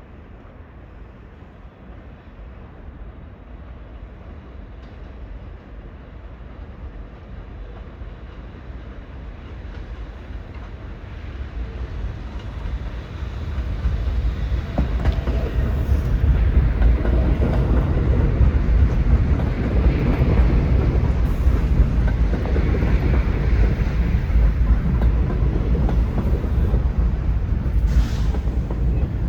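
New York City subway train approaching on the elevated track, growing steadily louder for about fourteen seconds, then running loud and close with rail clatter and scattered clicks.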